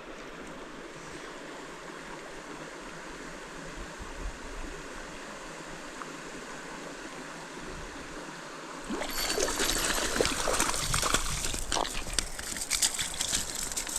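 Stream water flowing steadily. About nine seconds in it gives way abruptly to louder, close splashing in the water with irregular sharp clicks.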